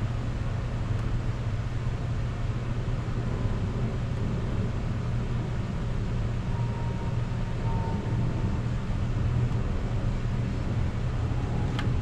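Steady low mechanical hum under an even background noise, with a light click near the end.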